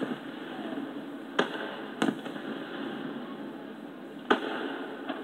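Aerial fireworks shells bursting, heard through a computer's speakers: three sharp bangs, two about half a second apart and a third some two seconds later, over steady background noise.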